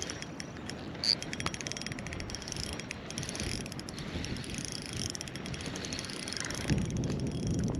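Fishing reel being cranked, its gearing giving a fast run of fine mechanical clicks, as a lure is retrieved from a kayak.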